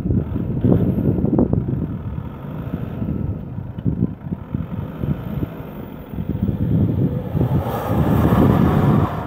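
VW Passat B5 facelift's engine and aftermarket exhaust running with the car standing. The sound grows louder and fuller in the second half as the car accelerates away.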